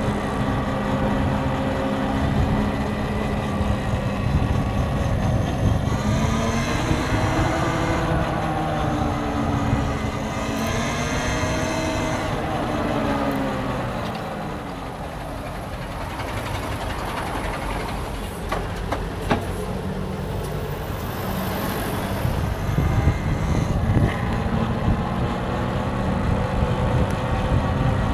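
Road noise heard from a moving car: a steady low rumble, with a vehicle engine whose pitch rises and falls several times in the first half and a few light clicks later on.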